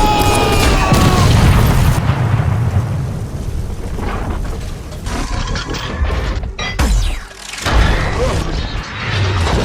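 Explosion sound effects in a battle mix: deep booms and heavy low rumble in the first two seconds, a falling whoosh about seven seconds in, and another rumble near the end.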